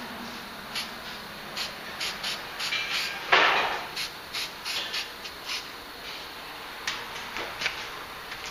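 Spray-paint art in progress: a string of short, sharp sounds, with one louder hiss lasting about half a second roughly three seconds in.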